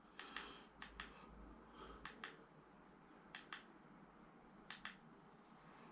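Small plastic push button pressed and released five times, each press a faint quick double click, cycling the colours of a nebula projector.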